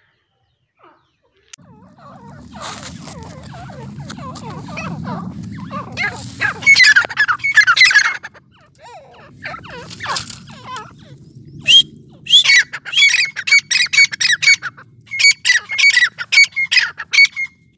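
Grey francolin (teetar) calling: harsh, loud calls at first, then a fast run of repeated shrill notes, several a second, in the second half. A low rumble lies under the first half.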